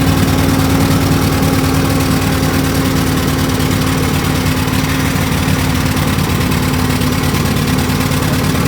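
Argo ATV engine idling steadily at an even pitch, running after a winter of refusing to start.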